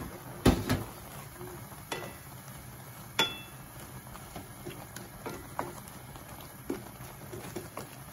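Wooden spatula stirring shrimp in a pan of simmering garlic butter sauce, knocking against the pan at irregular intervals, the loudest knock about half a second in, over the steady bubbling of the sauce.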